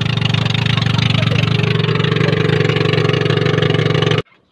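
Outrigger fishing boat's engine running steadily under way, loud and close, with fast even firing pulses. It cuts off suddenly near the end.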